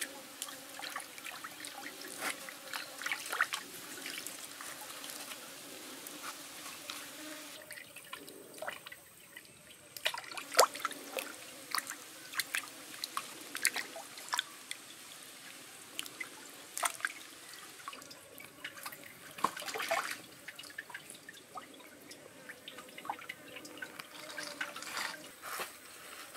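Water splashing and dripping as hands rinse and work a skinned snake in a shallow stream: irregular sharp splashes and drips over a faint steady trickle.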